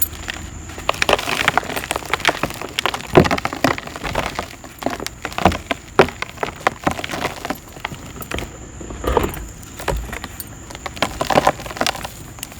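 Dry black dirt crumbling, with crispy, gritty crunches and crackles that come thick and irregular, in clusters of louder crunches.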